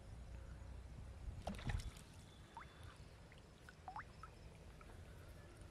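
A hooked fish splashing at the water's surface as it is pulled out of a pond on a rod and line: a short burst of splashes and knocks about one and a half seconds in.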